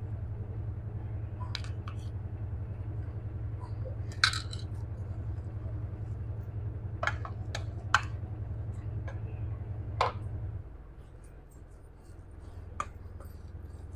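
Plastic spoon and potato masher clinking and scraping against a stainless steel pot while mashed potato is mixed with flour: a sharp clink every second or two. Underneath runs a steady low hum that drops away about ten seconds in.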